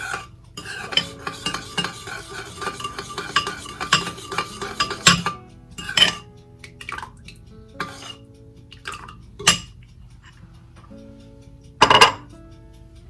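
A spoon stirring a thick sugar-and-lemon-juice glaze paste in a bowl, scraping and clinking against the sides in a busy run, then a few separate clinks, the loudest near the end.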